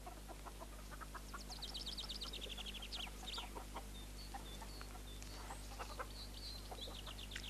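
Hens clucking softly, with a songbird singing a fast trill that falls in pitch about a second and a half in, followed by a few short high notes, over a low steady hum.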